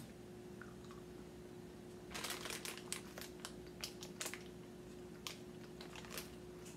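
Plastic candy bag crinkling as it is handled: a cluster of crackles about two seconds in, then a few scattered ones, over a faint steady hum.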